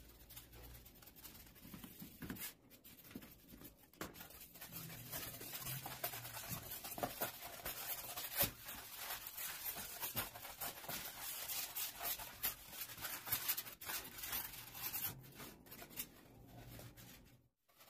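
Utility knife blade cutting through a thick polystyrene foam sheet along a curve: a dense run of rapid scratchy clicks and crackles, louder from about four seconds in, that cuts off suddenly just before the end.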